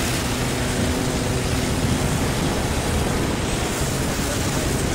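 A single-engine aerobatic biplane in flight: a steady engine and propeller drone under an even, broad rushing noise.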